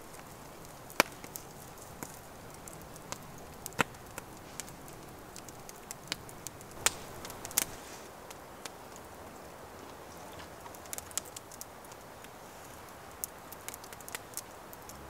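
Small campfire crackling quietly: a steady low hiss with irregular sharp pops and clicks, a few louder than the rest.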